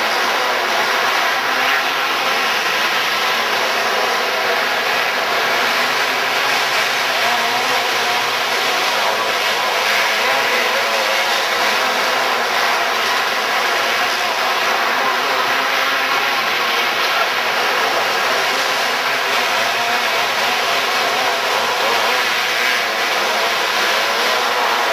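Steady din of outlaw dirt kart engines running at low, even speed under a caution, with no revving, in a large indoor arena.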